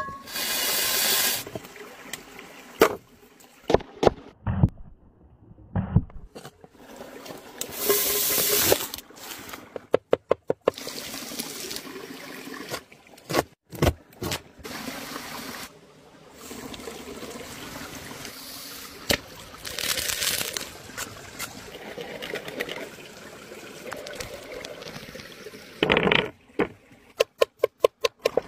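A string of outdoor-cooking sounds: stretches of hissing sizzle, scattered chops of a cleaver on a wooden board, and quick even runs of knife strokes, around ten seconds in and again near the end as an apple is sliced against the board.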